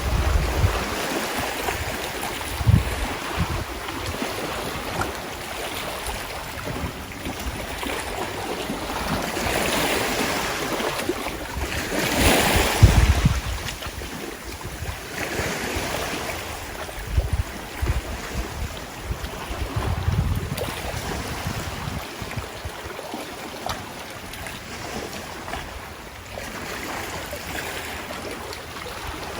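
Sea waves washing in swells that rise and fall, with wind buffeting the microphone in low thumps; the loudest surge comes about twelve seconds in.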